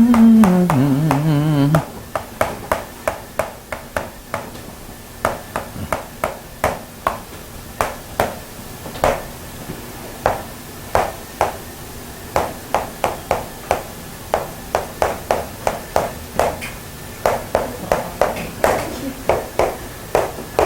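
Short sharp taps of writing strokes, irregularly one or two a second, with a brief wavering hum of a voice in the first two seconds.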